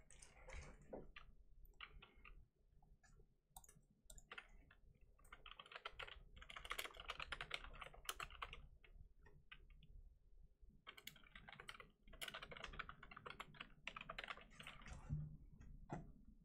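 Faint typing on a computer keyboard: two runs of rapid key clicks, the first starting about five seconds in and the second about eleven seconds in, with scattered single keystrokes around them.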